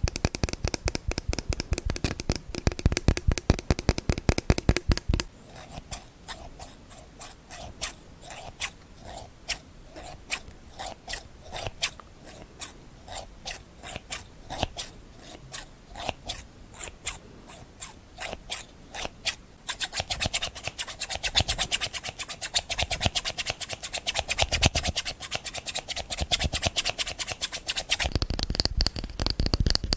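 Close-miked ASMR triggers: objects being scratched and tapped by hand. Fast, dense scratching for about the first five seconds gives way to sparser separate ticks, then dense scratching returns about twenty seconds in.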